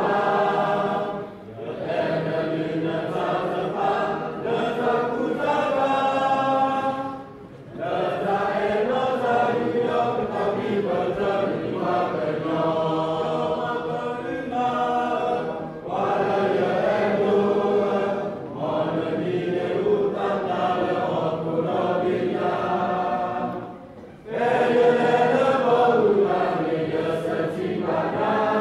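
A group of voices singing together, unaccompanied, in long held phrases with short breaks between them.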